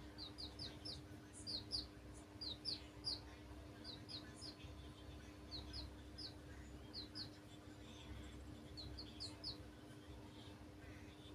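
Baby chicks peeping: short, high cheeps in quick clusters of two or three, frequent in the first half and more scattered later.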